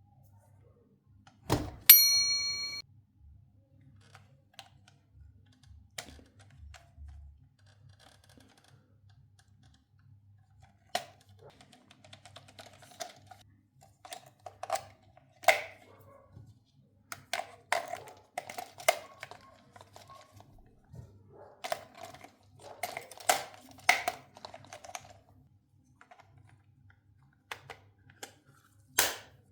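Scattered clicks and taps of plastic toy parts and packaging being handled, coming in clusters toward the middle and later part. Early on there is one sharp knock, followed by a short ringing ding.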